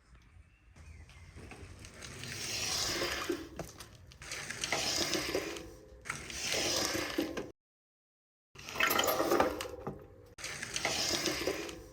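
A car's brakes making noise under braking, heard in four short separate takes that each swell up and then cut off abruptly. This is the annoying brake noise that started after the car ran over a turkey.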